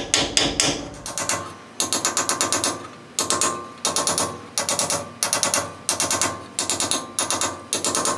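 Hammer striking a drift to drive a new axle seal flush into the rear axle tube of a 1977 Chevy C10: quick runs of ringing metallic taps, several a second, with short pauses between the runs.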